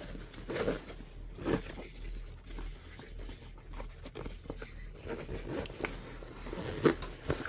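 A zipper on a backpack's internal divider being worked in short pulls, with the pack's fabric rustling as it is handled.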